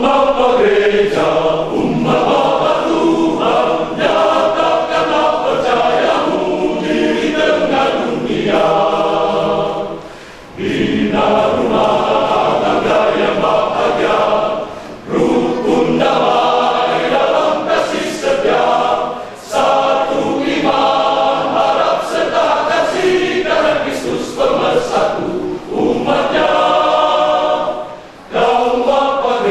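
Men's church choir singing in parts, phrase after phrase, with brief pauses for breath between phrases.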